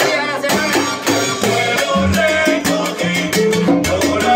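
A live salsa band playing: congas and hand percussion over a bass line that moves in steps, with dense rhythmic strikes throughout.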